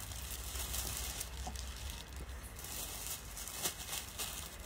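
Quiet room tone: a low steady hum with a faint hiss, and a couple of faint soft clicks.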